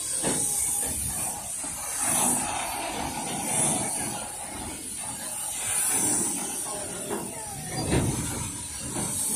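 Puffing Billy narrow-gauge steam train's wooden carriages rolling slowly past, with a low rumble of wheels on the rails under a steady high hiss that swells every second or two. A single thud about eight seconds in.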